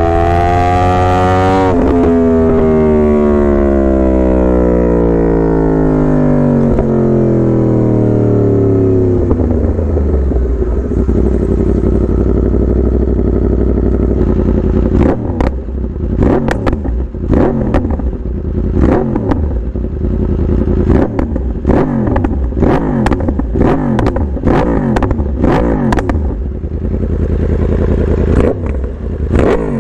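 Yamaha R1 sport bike's inline-four engine revving. It climbs to a peak, then winds down slowly over several seconds, holds steady, and then gives a long run of quick, repeated revs with sharp cracks among them.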